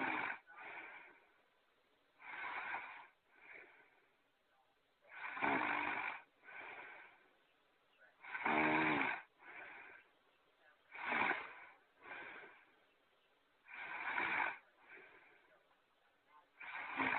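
Snoring sound effect repeating in a steady cycle: a loud snore followed by a shorter, softer one, about every three seconds. The snore near the middle has a buzzing, pitched rattle.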